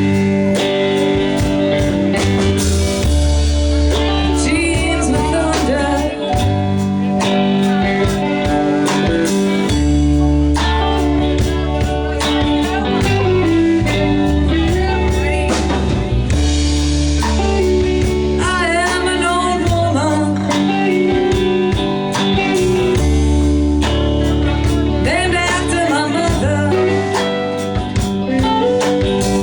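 Live band playing a blues song: electric guitar lines over bass and drum kit, with singing.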